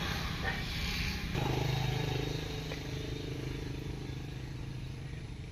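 Low wind rumble on the microphone; about a second and a half in, a steady low engine hum comes in and slowly fades away.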